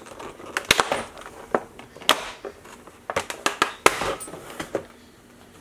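Stiff clear plastic clamshell blister packaging being handled and pried open, crackling with irregular sharp snaps and clicks. The noise dies down in the last second or so.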